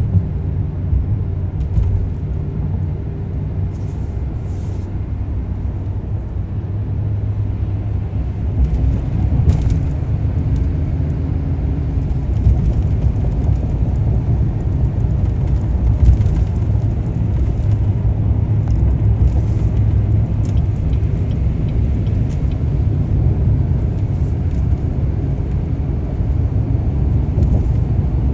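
A car driving, with a steady low rumble of engine and road noise that grows a little louder about eight seconds in. A few faint clicks are heard over it.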